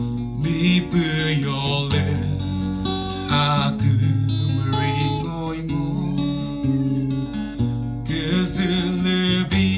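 A man singing a Chokri gospel song and accompanying himself on an acoustic guitar, the voice in phrases over held guitar chords.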